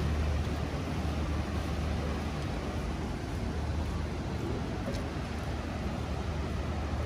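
Steady low rumble of engines with a hiss of city traffic, unchanging throughout; no single event stands out.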